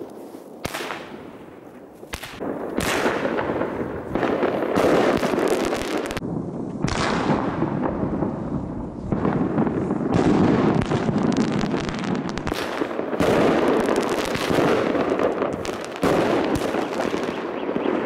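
New Year fireworks going off overhead: a few separate bangs in the first couple of seconds, then a dense, unbroken run of bangs and crackling that keeps up for the rest of the time.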